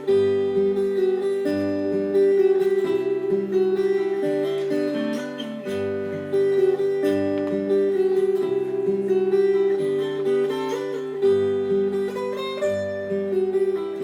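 Solo fingerstyle acoustic guitar in an altered tuning, picking a slow melody over changing bass notes, with one open note left ringing on beneath.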